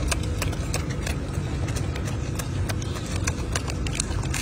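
Golden snub-nosed monkey eating crisp lettuce leaves close to the microphone: irregular crunching and crackling clicks of the leaves being bitten and torn, over a low steady rumble.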